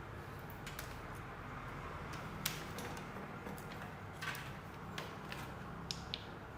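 Scattered light clicks and taps of a laptop being handled and its connector plugged in, over a faint steady low hum.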